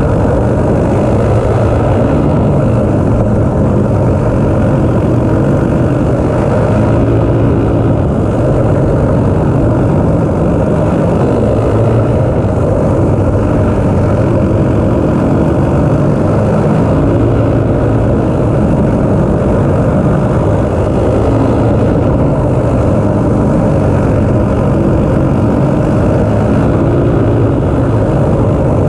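Caged dirt kart's small single-cylinder engine running hard at racing speed, heard from on board, its pitch rising and falling every few seconds as the throttle goes on and off through the corners.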